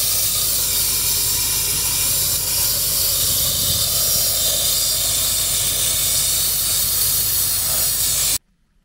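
Pressure-pot sandblaster firing coal slag abrasive from its nozzle onto a steel table: a loud, steady hiss over a low rumble, cutting off abruptly near the end.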